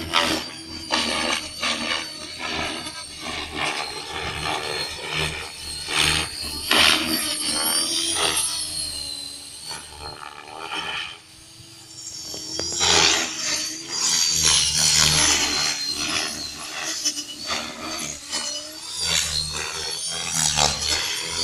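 Align T-Rex 550L electric RC helicopter in flight: rotor blades and motor buzzing and whooshing, the pitch sliding up and down and the level surging and fading repeatedly as the helicopter manoeuvres, with a brief drop about eleven seconds in.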